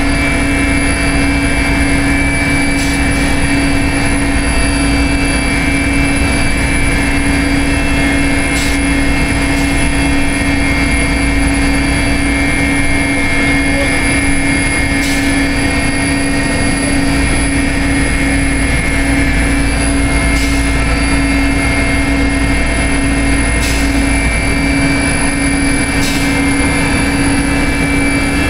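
Mil Mi-8 helicopter's twin turboshaft engines and main rotor running steadily, heard inside the cockpit: a loud, even drone with a steady high turbine whine over it. A few faint ticks are heard now and then.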